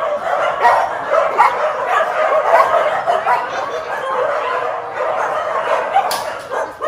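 Many dogs in shelter kennels barking and yipping at once, a continuous din of overlapping calls.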